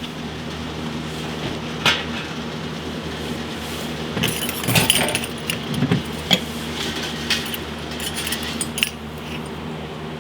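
Glass syrup bottles clinking and knocking together as they are handled, in scattered clinks that cluster in the middle, over a steady low hum.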